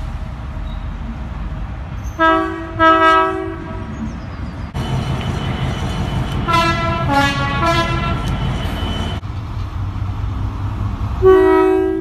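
Diesel freight locomotives sounding their two-tone air horns over the rumble of their engines, in three separate clips: two blasts about two seconds in, a run of short toots on alternating notes from a Class 66 around the middle, and one blast near the end from a Colas Rail Class 70.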